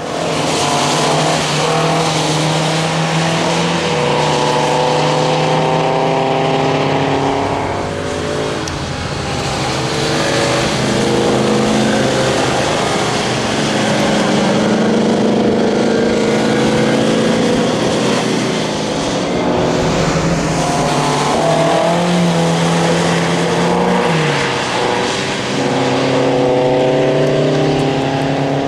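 Four-cylinder engines of a BMW 02-series and an Alfa Romeo coupé racing on a wet track, held at steady revs for seconds at a time with the pitch stepping between gears, over the hiss of tyre spray.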